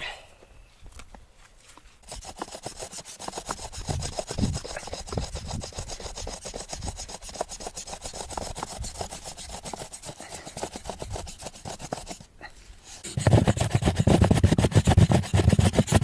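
Bow drill at work: a wooden spindle driven back and forth by a bow grinds into a bark fireboard in quick rubbing, rasping strokes. This friction builds heat toward an ember. The drilling starts about two seconds in, breaks off briefly near the end, then resumes louder and harder.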